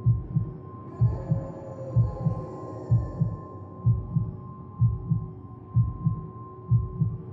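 Heartbeat sound effect: a slow double thump (lub-dub) about once a second, over a steady humming drone.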